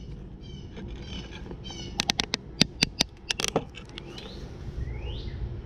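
Camera and its mount being handled and repositioned: a quick cluster of about a dozen sharp clicks and knocks. Short high-pitched animal calls come before them, and two brief rising chirps follow near the end.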